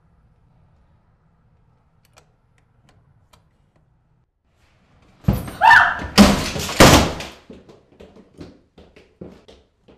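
A door being opened: a cluster of heavy knocks and bangs about five seconds in, followed by a run of lighter, irregular taps.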